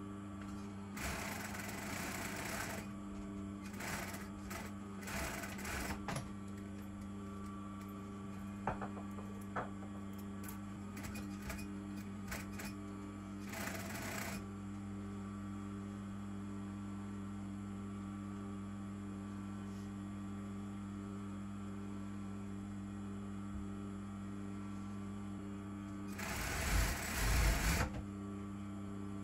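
Brother industrial lockstitch sewing machine stitching in several short runs of a second or two, the loudest near the end, with small clicks of fabric handling between them. A steady electrical hum runs underneath throughout.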